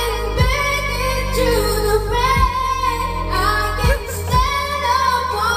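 A woman singing a slow pop ballad with long held notes, over backing music with steady bass and occasional drum hits.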